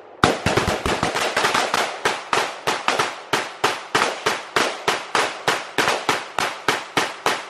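Rapid, slightly uneven string of rifle shots from several rifles fired at once, about five or six shots a second, starting a moment in and stopping just before the end.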